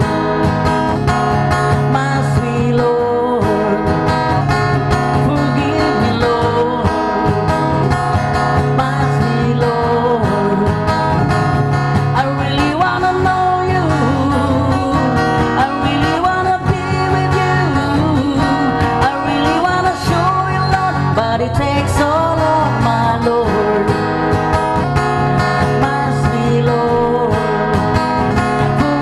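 A man singing into a microphone, accompanying himself on an acoustic guitar.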